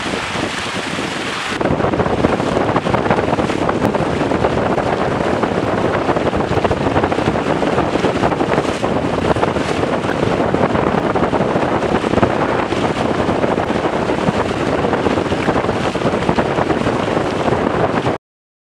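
Strong wind buffeting the camera microphone over water rushing and splashing past the hulls of a Weta trimaran sailing fast. It gets louder about a second and a half in and cuts off abruptly near the end.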